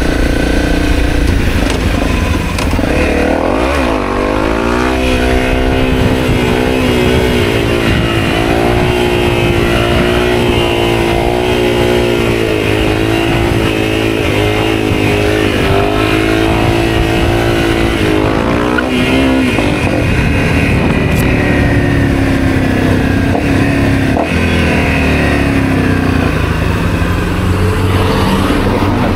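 Honda CRF250L's single-cylinder four-stroke engine running while riding. Its pitch climbs about four seconds in, holds high and wavering, then falls back about two-thirds of the way through and stays lower.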